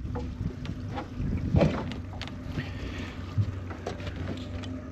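A boat's motor humming low and steady, with scattered light knocks and rattles from a crab pot being handled against an aluminium hull; the sharpest knock comes about a second and a half in.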